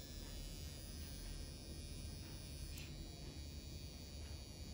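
Faint, steady buzz of an electric permanent-makeup tattoo pen running as it works pigment into an eyebrow.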